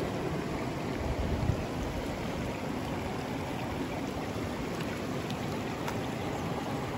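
River water flowing, a steady even rush, with a brief low rumble about a second in.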